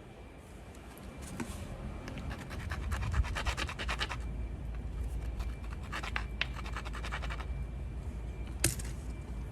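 Obsidian being worked into a stone tool: bursts of rapid, scratchy clicking strokes of stone on stone, one long run a couple of seconds in and a shorter one past the middle, then a single sharp click near the end.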